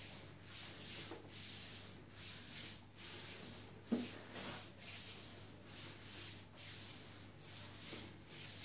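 Hands rubbing and stroking along bare legs in a regular swish, about two strokes a second: warm-up massage strokes that prepare the leg muscles for kneading. There is a single brief thump about four seconds in.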